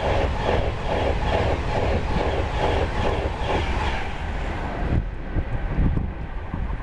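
A train passing, its wheels clattering in a quick, regular beat that dies away about five seconds in, leaving a low rumble and scattered clicks.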